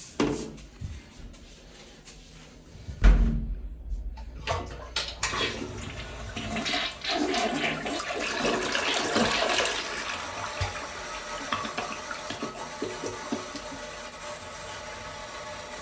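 Toilet flushing: about three seconds in, a sudden low thump as the flush starts, then rushing water that swells over several seconds and eases into the steady hiss of the tank refilling. The flush is one the owner calls terrible, and the noise goes on the entire time the tank fills up.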